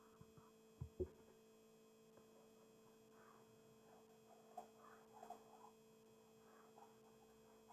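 Near silence: a faint steady electrical hum, with two soft clicks about a second in.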